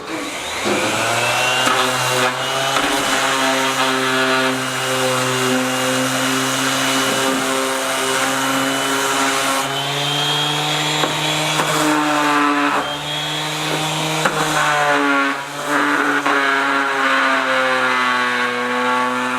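Bosch ROS20VSC corded 2.5-amp random orbital sander sanding a piece of wood with 80-grit paper. The motor starts about half a second in and then runs steadily with a sanding hiss, its pitch stepping up and down a few times.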